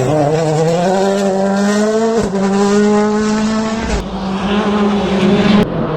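WRC Plus rally car's engine running hard at high revs. The note rises, then holds steady, with short breaks about two seconds in and near the end.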